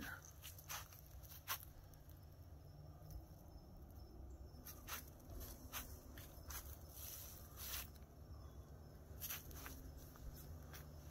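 Faint footsteps crunching on dry leaf litter and wood chips, irregular crackles roughly once a second, over a low steady rumble.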